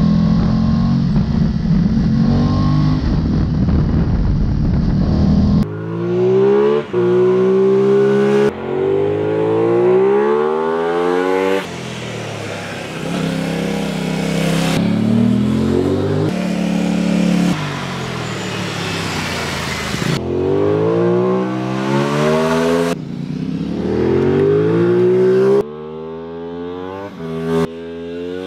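Aprilia Tuono 660's parallel-twin engine under hard riding: first heard on board mixed with wind rush, then from the roadside in short takes that change abruptly, revving up and dropping back again and again as it accelerates, shifts and slows for bends.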